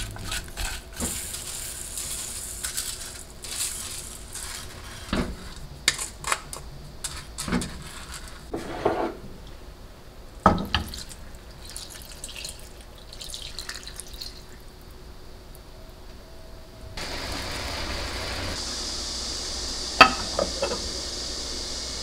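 Wooden spatula stirring chopped vegetables in an earthenware pot, with irregular knocks and scrapes against the pot. Water is poured from a measuring cup over rice in the pot, and in the last few seconds a steady hiss sets in, with one sharp knock.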